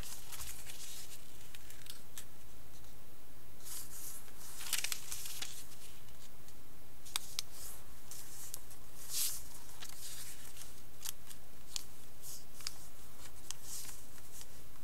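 A square sheet of colour paper being folded and creased by hand: irregular bursts of rustling as the sheet is shifted, with short crisp crackles as the folds are pressed flat.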